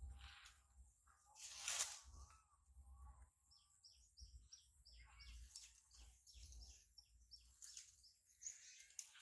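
Faint outdoor sounds: leaves and branches rustle loudly about a second and a half in as a monkey moves through a bush, followed by a run of short, high chirps over a low wind rumble.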